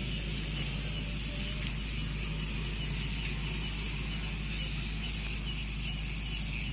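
Steady outdoor background hum and hiss, with no distinct event.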